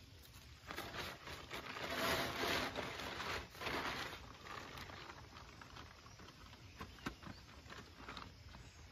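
Tarp rustling and crinkling as it is grabbed and pulled, loudest from about one to four seconds in, then fainter scattered crackles.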